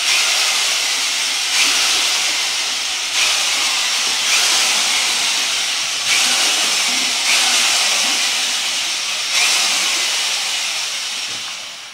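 Handheld electric drill with a paddle mixer running in a bucket, churning household food waste, water and bacteria into a slurry. The drill runs loud and steady, with small surges every second or two, and winds down near the end.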